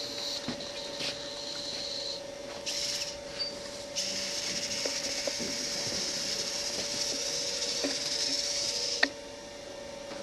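Small robot's electric drive motors whining as it drives across the maze floor. The whine comes in short spurts over the first few seconds, then runs steadily for about five seconds and stops suddenly with a click about nine seconds in.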